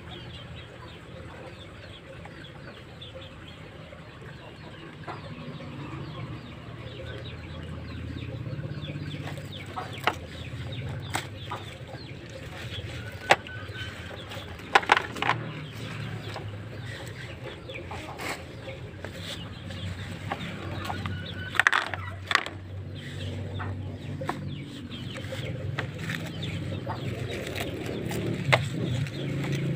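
Lettuce plants being handled and pulled out of white PVC hydroponic pipes: leaves rustling, with scattered sharp clicks and knocks, over a steady low background hum.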